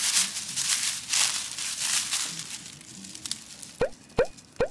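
Dry fallen leaves crunching and rustling under a fox terrier's paws as it sniffs about. The rustling fades after about two and a half seconds. Near the end come three short, loud pops, evenly spaced.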